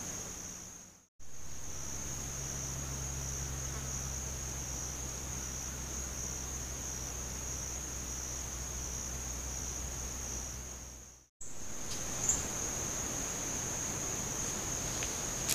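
Steady, high-pitched chorus of insects in summer woodland, broken by two brief dropouts where the recording cuts, about a second in and near the end. A low steady hum sits under the insects between the two dropouts.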